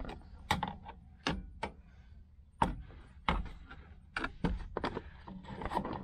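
Irregular clicks and light knocks, about ten of them, of a plastic interior trim piece being handled and set against the car's body.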